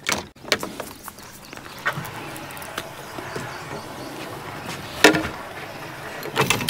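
Fishing rods and gear knocking and clattering against a boat as they are moved about: a handful of sharp knocks, the loudest about five seconds in, with a steady rushing sound between them.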